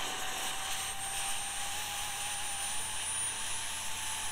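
Jet Central Rabbit model turbine jet engine spooling up under its own power during the fuel ramp at the end of its start, approaching idle speed. A steady jet rush with a thin whine that rises slowly in pitch.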